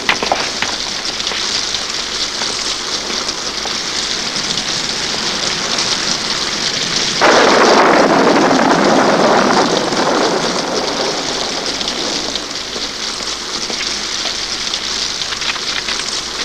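Steady heavy rain, with a louder rushing surge that starts suddenly about seven seconds in and fades away over the next three seconds.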